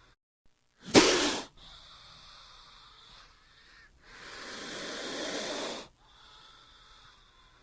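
Cobra hissing in forceful breaths: a short, sharp, loud hiss about a second in, fainter hissing after it, then a longer hiss that builds from about four seconds in and cuts off about two seconds later.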